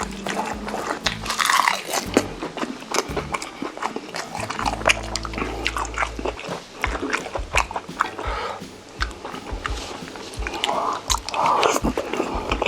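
Close-miked eating sounds: biting and chewing braised chicken in a creamy sauce, with many sharp wet mouth clicks and a few louder mouthfuls.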